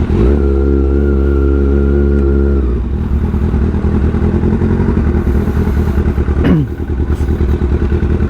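Kawasaki ZX6R inline-four motorcycle engine running under way. A steady held note starts just after the beginning and cuts off about two and a half seconds in. A quick falling sweep comes about six and a half seconds in.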